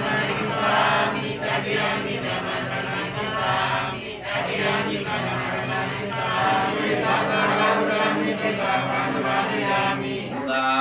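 A group of voices chanting together, with music.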